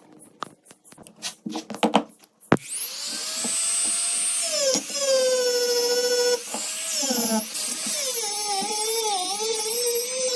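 A few light taps and clicks of handling, then about two and a half seconds in a small high-speed electric rotary tool starts and runs with a steady whine. From about eight seconds in its pitch dips and recovers repeatedly as it is pressed against the metal under load.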